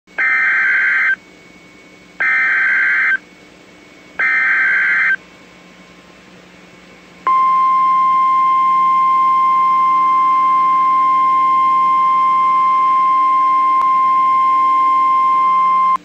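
NOAA Weather Radio Emergency Alert System signal for a tornado warning: three one-second bursts of SAME digital header data two seconds apart, then, about seven seconds in, the steady 1050 Hz weather radio warning alarm tone held for nearly nine seconds.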